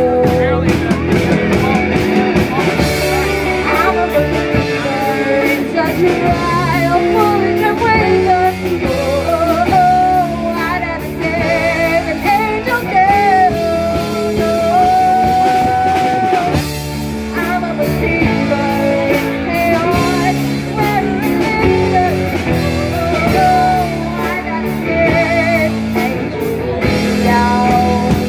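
Live rock band playing: a woman singing with vibrato over electric guitars and drum kit, holding one long note about halfway through.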